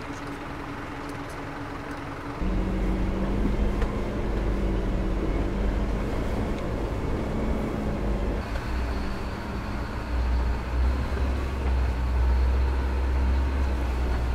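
Isuzu NPS 4x4 truck's four-cylinder turbo-diesel engine running as it crawls along a rough dirt track. The sound changes abruptly about two seconds in, becoming louder with a deep rumble, and changes again later on.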